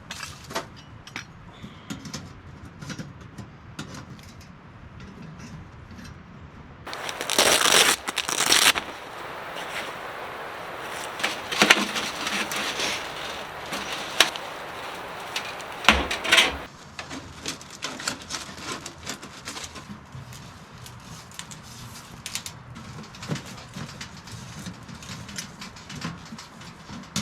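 Footsteps crunching through dry leaves and twigs, with many small snaps and cracks and two louder stretches of rustling about a quarter and a half of the way through.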